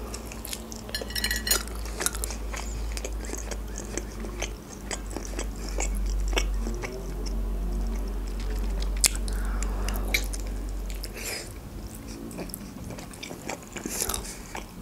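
A person biting into and chewing a Georgian khinkali, a boiled meat dumpling, with many scattered short mouth clicks and smacks.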